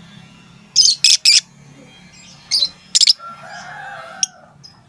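Lovebird giving sharp, loud 'tik' contact calls to its companions: three in quick succession about a second in, then two more a little later. A fainter, lower sound and a single sharp click follow near the end.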